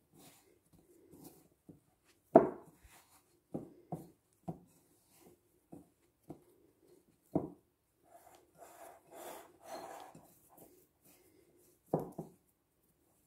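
Hands pressing and gathering soft dough in a glass mixing bowl: a run of irregular dull knocks as hand and bowl bump, the loudest about two seconds in and another near the end, with a soft rubbing scrape of dough against the glass about two-thirds of the way through.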